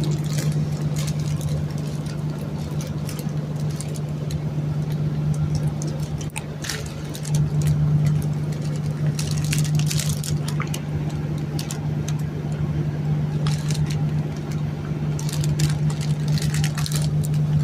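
A steady low hum, with scattered rustles and clicks over it.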